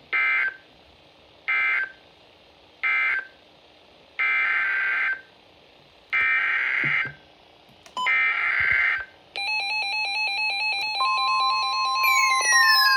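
Emergency Alert System digital data tones: three short buzzing bursts about a second apart (the end-of-message code), then three longer one-second bursts (the SAME header of the next warning). About nine seconds in, an electronic alert tone pattern starts; a steady tone joins it, and falling sweeps come in near the end.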